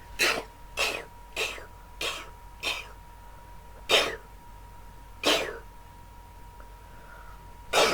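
A person doing fake sneezes over and over: eight short bursts, the first five in quick succession about twice a second, then three more spaced further apart.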